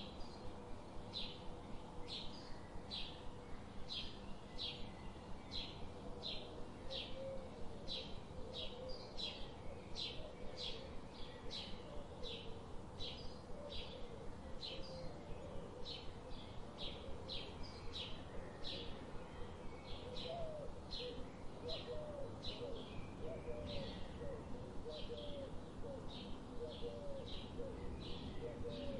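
Small birds chirping: short high chirps repeating steadily about twice a second, with lower, wavering calls joining in, more often in the second half.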